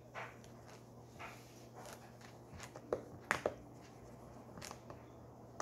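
Light handling noises at a table: scattered soft taps and clicks, with two sharper clicks about three seconds in, over a faint steady low hum.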